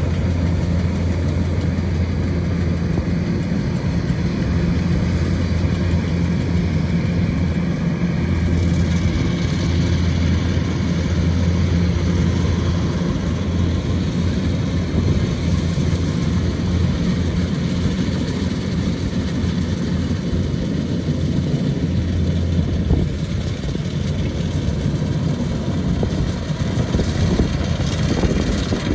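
Kubota DC-105X combine harvester's diesel engine running steadily under harvesting load, a continuous deep hum.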